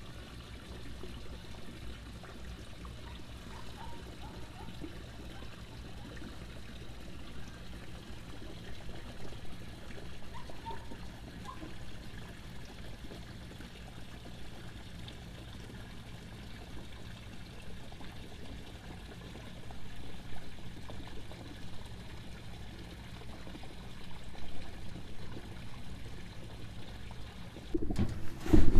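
Water lapping and trickling against a marina dock, a steady low wash. Near the end a sudden loud knocking and rustling of handling as the phone is picked up.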